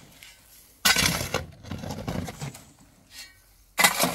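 Metal shovel scraping and scooping sand off a truck's metal bed, two strokes about three seconds apart, each a sudden gritty scrape.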